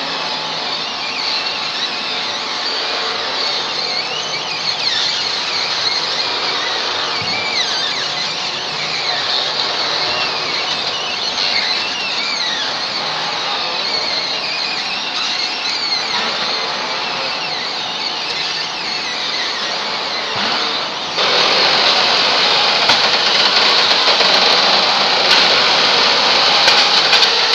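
Palm kernel nut elevator and mill machinery running with a steady loud noise and high squeaking glides. About two-thirds of the way through, the noise jumps suddenly louder and denser, with fine crackling ticks.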